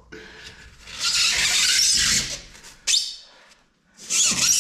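Foam insulation being torn and scraped out from behind a shipping-container wall panel: a long noisy stretch of tearing, a short burst, a brief pause, then tearing again near the end.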